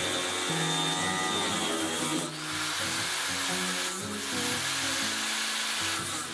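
Electric angle grinder cutting through a rusted-solid steel engine mount crossbar, its whine and grinding noise wavering and briefly dipping a few times, under background music with a stepped melody.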